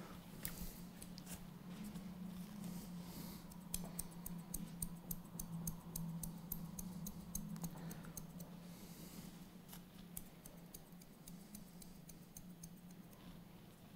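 Hairdressing scissors snipping through hair in a quick run of short cuts, thinning out near the end, over a faint steady low hum.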